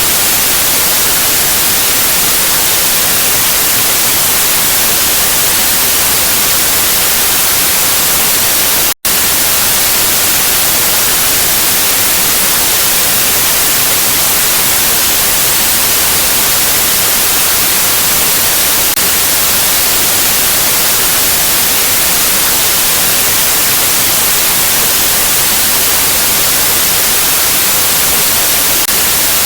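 Loud, steady white-noise static hiss, strongest in the high treble, with one brief dropout to silence about nine seconds in.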